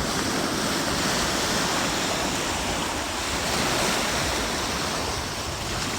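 Ocean surf washing steadily onto the beach, with some wind buffeting the microphone.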